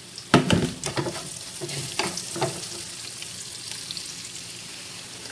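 Chopped onion and garlic sautéing in oil in a frying pan: a steady sizzle, with a wooden spatula knocking and scraping against the pan several times in the first two and a half seconds, the loudest knock just after the start.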